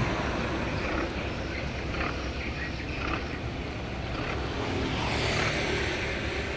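A steady low engine rumble that swells slightly about five seconds in.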